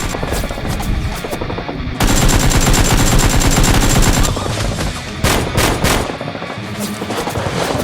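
Automatic gunfire sound effects: a loud burst of rapid fire about two seconds in that lasts about two seconds, then a few more shots a little later, over background music.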